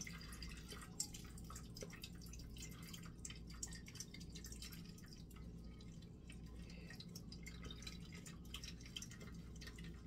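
Blended cucumber juice dripping and trickling from a mesh strainer into a pot while the pulp is pressed through with a wooden spoon: faint, with many small irregular drips and ticks over a low steady hum.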